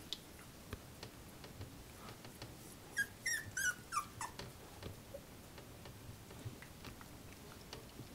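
Young puppy squeaking and whining in a quick run of short, high, falling cries about three seconds in, complaining. Faint scuffling of puppies moving about runs underneath.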